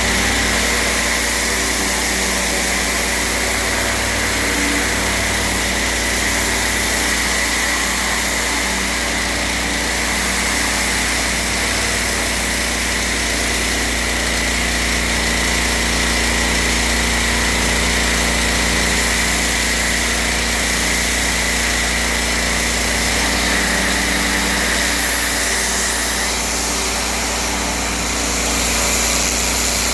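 Petrol pressure washer engine running steadily at constant speed, with a steady higher hiss over it that stops near the end.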